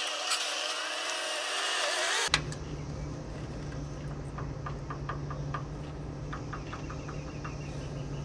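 A loud hiss with wavering, squeaky tones that cuts off abruptly about two seconds in. Then a low steady hum, with a run of light metallic clicks as hand tools work the valve adjusting screws on the rocker arms of a John Deere 4045 diesel's cylinder head.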